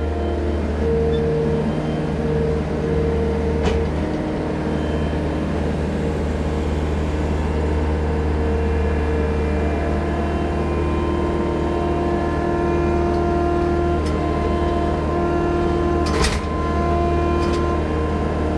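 Mustang skid-steer loader's engine running steadily, with a higher whining tone that comes and goes. There is a sharp knock about 16 seconds in.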